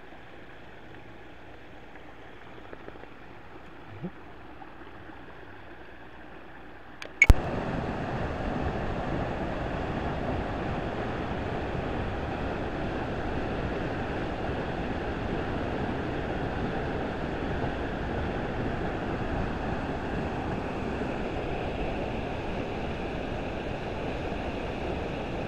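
Rushing water of a mountain waterfall and fast creek: a steady, even rush. For the first seven seconds it is quieter, then after a sharp click it jumps up louder and stays level.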